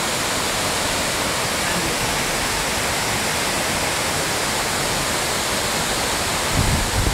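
Waterfall in full monsoon flood, a steady, even rush of heavy falling water. A brief low rumble comes in near the end.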